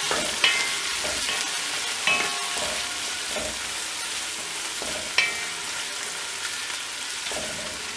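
Sliced onions sizzling as they fry in hot oil and ghee in a non-stick pot, stirred with a wooden spoon that knocks sharply against the pot three times.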